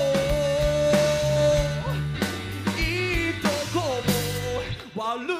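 Live rock band playing: drum kit, electric guitar and a steady low end under a long held melodic line that bends in pitch. About five seconds in, the drums and low notes drop out briefly.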